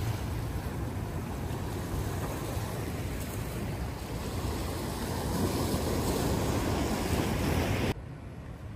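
Mediterranean Sea waves washing on the shore, with wind buffeting the microphone. The wash swells about five seconds in, then drops abruptly to a quieter level near the end.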